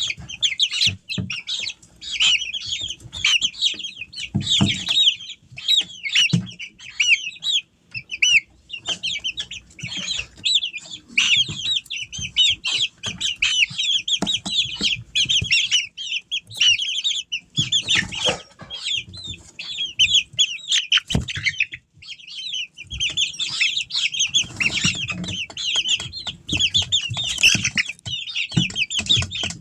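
A group of half-grown chickens peeping and chirping nonstop, many short high calls overlapping, with a brief lull about two-thirds of the way through. Occasional thuds and wing flaps come from the birds moving about the brooder box.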